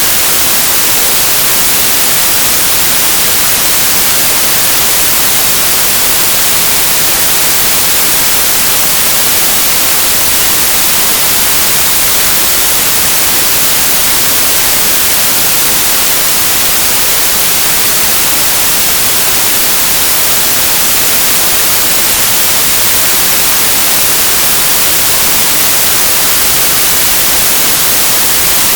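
Loud, steady static hiss, strongest in the high treble and unchanging, with nothing else heard over it.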